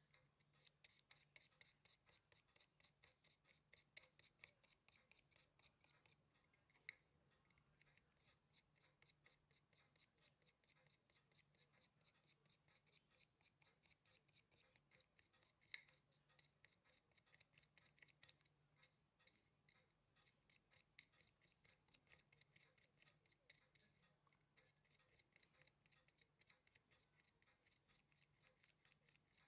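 A high-beat Zodiac Kingline 36000 watch movement ticking rapidly and evenly, its balance beating at 36,000 vibrations an hour, which shows the movement is running. Two louder single clicks stand out, one about a third of the way in and one about halfway.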